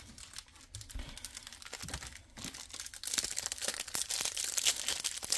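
Foil wrappers of Bowman Chrome trading card packs being torn open and crinkled by hand, a dense irregular crackling that gets louder about three seconds in.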